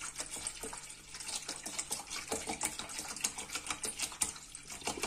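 Water pouring in a steady stream from a plastic bottle into a stainless steel pot, splashing into the water already in it, with many small irregular splashes.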